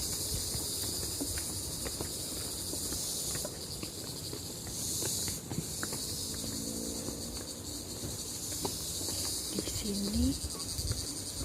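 High-pitched insect chorus sounding steadily, with scattered footsteps on a trail and faint voices.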